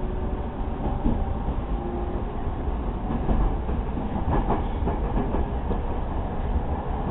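Running noise inside a JR East 209 series electric train car under way: a steady low rumble of steel wheels on the rails, with a few clacks over rail joints around the middle.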